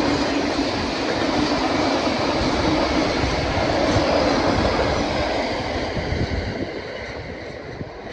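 Train rolling past over a railway level crossing, wheels rumbling on the rails, the sound fading steadily over the last few seconds as it moves away.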